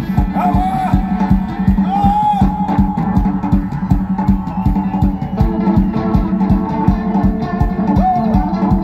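Live band music: a steady drum beat under guitar and a gliding melodic line.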